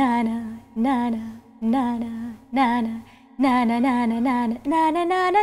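A woman singing solo, holding long notes with vibrato and small ornamental turns in about six short phrases, each broken by a brief pause. Near the end the line climbs to a higher note.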